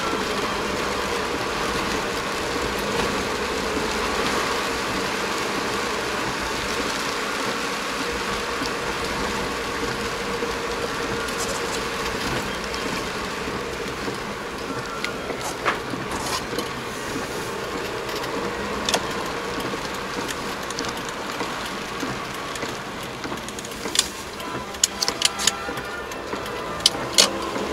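Steady rain and wet-road tyre noise inside a moving Suzuki Jimny's cabin, with a faint steady engine hum. A few sharp clicks come near the end.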